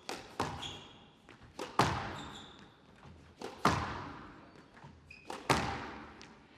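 Squash rally: the ball cracks off racket and walls in a steady exchange, a loud hit roughly every two seconds, each echoing in the hall, with a lighter hit just before several of them. Short shoe squeaks on the court floor come between the shots.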